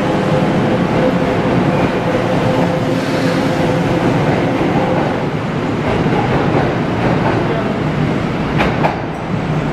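Kintetsu electric train running through the station over the rails, with a steady hum that stops about halfway. Two sharp clicks come near the end.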